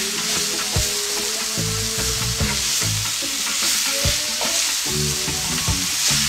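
Curry chicken sizzling in hot oil in a frying pan as a spatula stirs and scrapes it around, with a few sharp knocks of the spatula against the pan.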